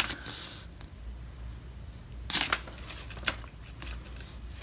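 Paper packing slip rustling and crinkling as it is handled and folded, in a few short bursts: one at the start and a couple more about two and a half seconds in.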